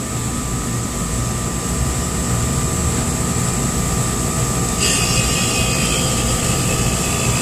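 Beer cooler's refrigeration compressor running with a steady hum, just brought up on a 3-in-1 solid-state relay, overload and start-capacitor hard-start kit after failing to start on its original capacitor. A brief higher whine comes in about five seconds in.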